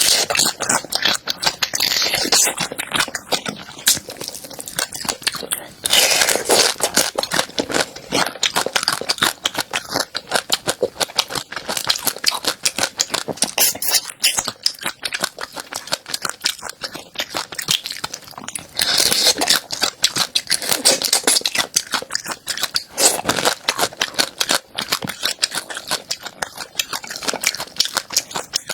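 Close-miked chewing of a crunchy food: dense rapid crackling and crunching, with louder crunches at fresh bites about 6, 19 and 23 seconds in.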